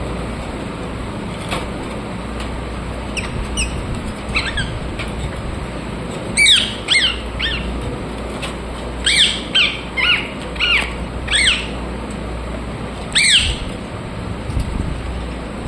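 Rose-ringed parakeets giving short, sharp calls, each dropping in pitch, in quick bunches of two to five, over a steady low hum.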